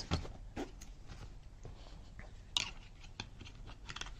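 Handling noise from a fabric flight bag being turned over: soft rustling with scattered light clicks from its zipper pulls and clips, the sharpest click about two and a half seconds in.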